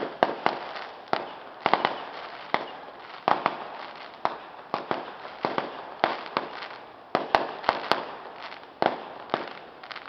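Fireworks going off in an irregular, continuous series of sharp bangs, about three a second, each followed by a short echo.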